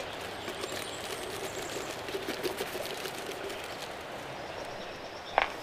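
Steady rushing of a fast-flowing creek, with one sharp click about five seconds in.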